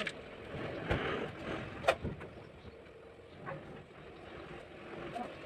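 A few sharp clicks and knocks of hard plastic and metal parts of a truck air-dryer distribution unit being handled, the loudest about two seconds in, over a steady low background hum.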